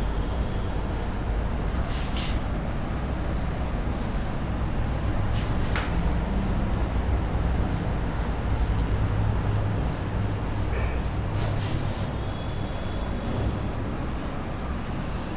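Continuous uneven rubbing and rustling, with a low rumble, from a hand wiping across an interactive touchscreen board to erase writing. A few faint short squeaks come near the end.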